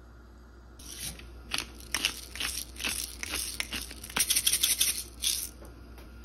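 Wooden spoon stirring oil-and-vinegar dressing in a glass mug, scraping and knocking against the glass in many short repeated strokes. It starts about a second in and stops shortly before the end.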